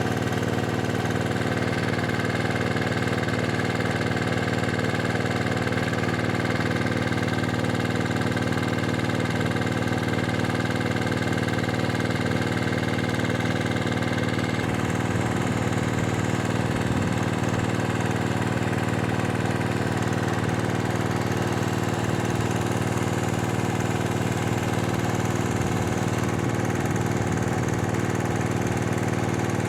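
Electric heat gun running steadily with an even motor hum, blowing hot air to shrink heat-shrink sleeves onto crimped cable lugs.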